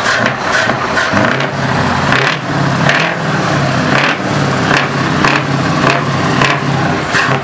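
Scania truck's diesel engine with loud exhaust pipes, running and revved repeatedly in short throttle blips that send out black smoke.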